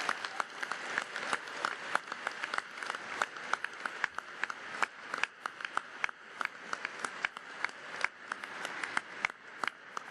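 Audience applauding, a dense stream of hand claps that keeps going steadily.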